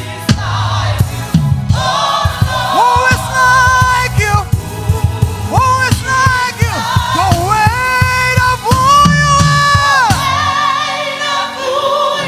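Choir singing a gospel worship song with band accompaniment: voices carrying a melody with long held notes that swell about eight to ten seconds in, over bass and drums.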